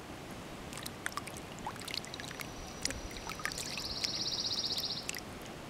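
Lake water splashing and dripping as a redear sunfish is rinsed by hand in the shallows, with many small splashes and drips. About halfway through, a high, rapidly pulsed buzz lasts about a second and a half.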